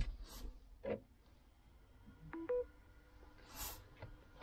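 A short two-note electronic beep, a lower note and then a higher one, a little past halfway, over quiet car-cabin room tone. A soft knock comes about a second in, and a brief soft hiss comes near the end.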